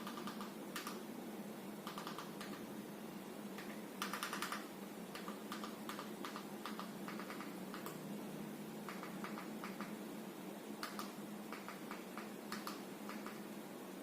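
Irregular runs of light key or button clicks, typing in a song search, over a steady low hum.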